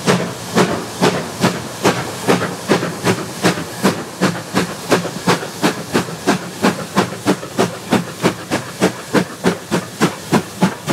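GWR 0-6-2T tank locomotive No. 5643 working a train under steam: sharp exhaust chuffs, each a burst of hissing steam, as the engine passes close by. The beats quicken from about three to about four a second as it gathers speed.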